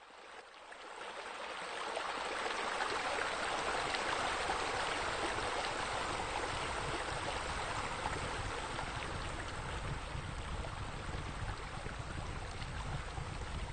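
Steady rush of splashing, falling water, like a fountain or wall spouts pouring into a pool. It fades in over the first couple of seconds, and a low rumble joins underneath about three seconds in.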